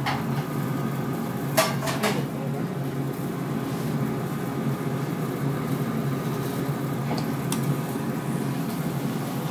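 A few sharp clinks of dishes and a metal spoon, two close together about a second and a half in and a fainter one near the end, over the steady hum of a countertop air fryer running.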